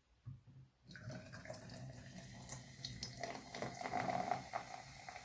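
Carbonated energy drink poured from a can into a glass: a steady stream of liquid starting about a second in and growing louder.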